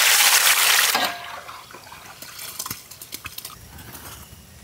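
Hot oil sizzling loudly around freshly dropped balls of banana bonda batter in a deep kadai. The sizzle cuts off about a second in, leaving only faint scattered light clicks.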